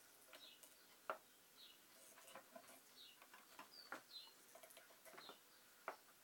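Faint small clicks and taps of hands working a wire and small tools on a workbench, scattered irregularly, with faint short high chirps between them.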